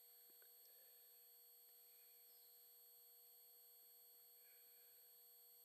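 Near silence: faint hiss with several thin steady high tones, like electronic whine from the recording chain.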